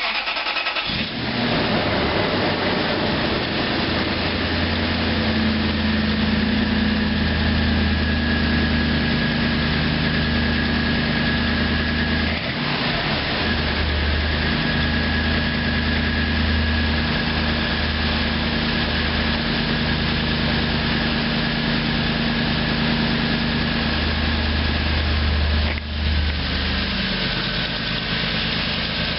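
Toyota Tundra engine starting about a second in, then idling steadily. It has a tick that the owner cannot place between valve tick, piston slap, an exhaust manifold leak or an injector, and that shows on a cold engine.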